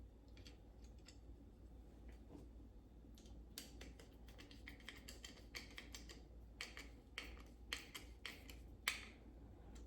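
Faint, irregular light clicks and taps of small door-handle hardware being handled as a sliding door handle and its escutcheon plate are fitted together, mostly in the second half.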